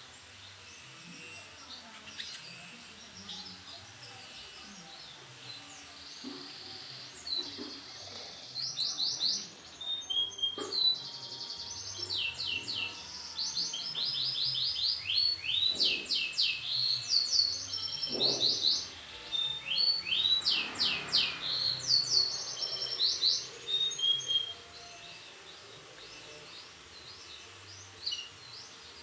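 Canary song: runs of fast trills made of rapid repeated down-slurred notes mixed with chirps, picking up about a quarter of the way in and dying back to faint chirps near the end.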